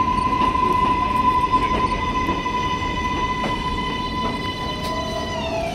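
Kawasaki R188 subway train running, with a steady high-pitched squeal over the rumble of the cars. The squeal drops in pitch near the end.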